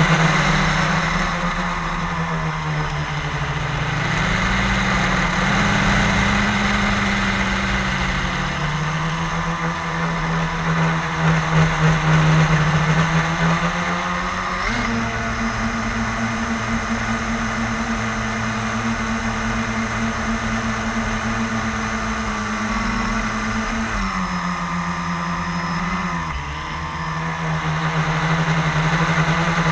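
Blade 350 QX quadcopter's four brushless motors and propellers buzzing steadily in flight, heard up close from the camera mounted on the craft. The pitch wavers a few seconds in, steps up about halfway through, and drops back a few seconds before the end.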